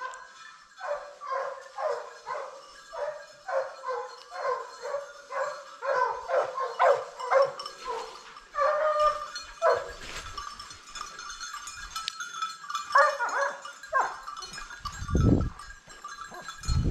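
Boar-hunting hounds baying in a steady run of barks, about two a second. They break off about ten seconds in and give a short burst again a few seconds later.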